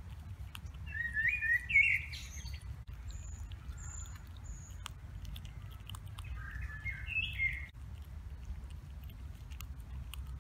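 A songbird singing two short phrases of stepped whistled notes, about a second in and again about six seconds in, with three brief high thin whistles between them. Faint scattered clicks and a low steady rumble sit underneath.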